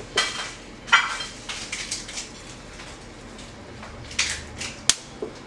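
A few sharp clicks and short crisp crackles from dried guajillo chiles and spices being handled on a comal for roasting. The sharpest click comes near the end.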